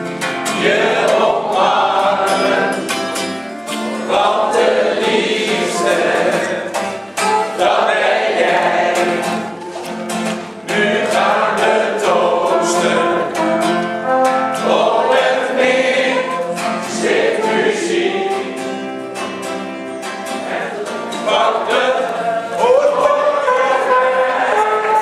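Steel-string acoustic guitar strummed to accompany singing led by a man's voice, a live song performed as one continuous piece.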